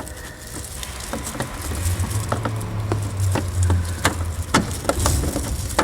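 Scattered sharp clicks and light knocks of hands working the plastic parts of a car headlight assembly, with a low rumble from about two to four seconds in.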